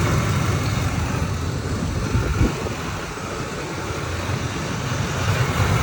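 2003 Ford Expedition V8 idling while still warming up, below the operating temperature at which its chirp begins, so no chirp is heard. There is a single low knock about two and a half seconds in.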